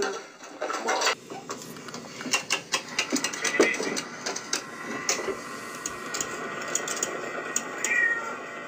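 Film soundtrack of many sharp metallic clicks and clanks over a steady tone, with a short cat meow about eight seconds in.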